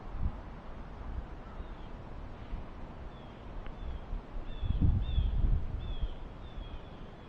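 A small bird calling over and over with short, falling chirps, about two a second, through a low rumbling noise that swells about five seconds in.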